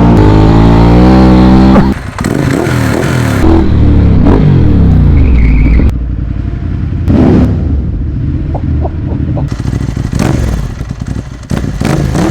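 Ducati motorcycle engine with a loud aftermarket exhaust accelerating hard. Its pitch climbs, drops at a gear change about two seconds in, and climbs again. In the second half it revs up and down more unevenly, with short crackles.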